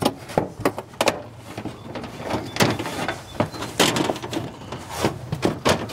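Thin sheet-metal siding panel being flexed and slid up into place on an RV's side wall: irregular knocks, rattles and scrapes of metal against the aluminum siding.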